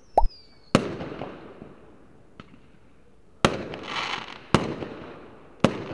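Fireworks sound effect: a short falling whistle and a thud, then four sharp bangs, each trailing off in a crackle. The last three bangs come about a second apart.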